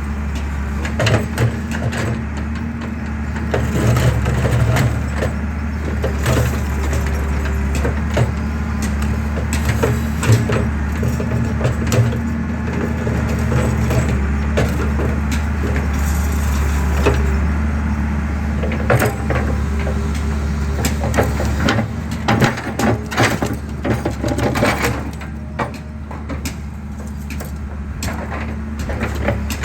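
Excavator engine running steadily while concrete cracks and crunches irregularly under the machine as a pillar is crushed, with the cracking busiest in the second half.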